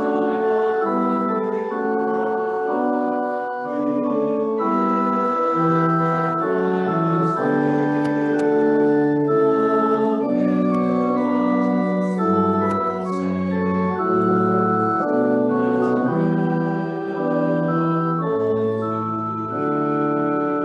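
Organ playing a slow piece in held chords, each note sustained without dying away, with deep pedal bass notes coming in about twelve seconds in.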